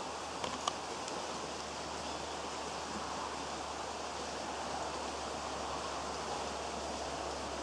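Steady rushing outdoor background noise with a faint rustle, and two faint short clicks about half a second in.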